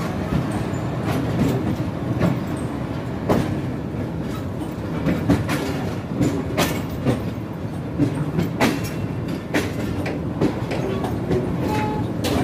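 Passenger train running at speed through a junction, heard from aboard the coach: a steady rumble of the wheels with irregular sharp clacks as they cross rail joints and points.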